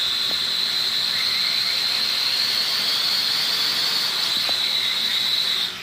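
V950HD toy quadcopter's four small geared motors and propellers spinning up, a steady high whine whose pitch creeps slowly upward, with all four motors, including the newly replaced one, running. Near the end the whine cuts off suddenly as the throttle drops.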